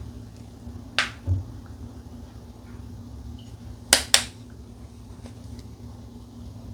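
Blocks of dyed gym chalk snapping as they are broken by hand: two pairs of sharp cracks, one about a second in and one about four seconds in, the two in each pair a fraction of a second apart. A low steady hum runs underneath.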